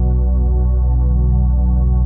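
Ambient new-age synthesizer music: a steady drone of held, layered tones, heaviest in the bass, with no beat or change.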